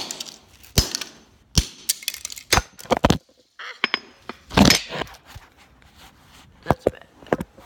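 Hammer blows striking a Hot Wheels toy car on a concrete floor: five sharp cracks about a second apart early on, then a longer scuffling clatter, then two more knocks near the end.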